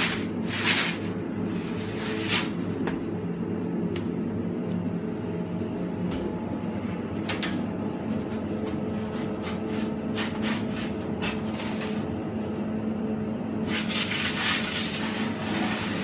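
Metal baking trays clattering and scraping as they are slid into a deck oven, over a steady machine hum. The scraping comes in scattered short strokes and grows denser and longer near the end.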